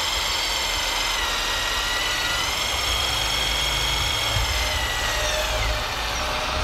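Radio-controlled scale Komatsu PC490 excavator at work, its hydraulic pump motor giving a steady high whine as it digs. The whine's pitch rises slightly midway and dips again near the end.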